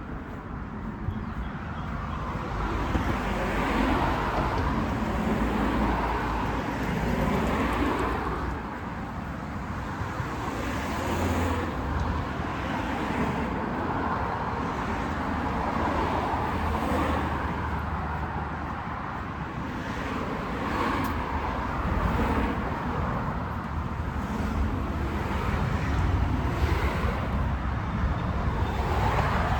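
Street traffic: cars driving past in a continuous flow, the noise swelling and easing every few seconds.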